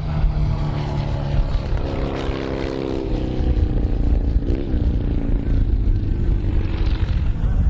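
Britten V-twin racing motorcycle engine running, a deep rumble with a brief wobble in pitch about halfway through.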